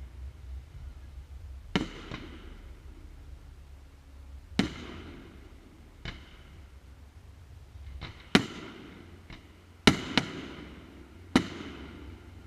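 Fireworks bursting in a display: about seven sharp bangs spaced one to three seconds apart, each trailing off in a rolling echo, the loudest ones coming close together near the end.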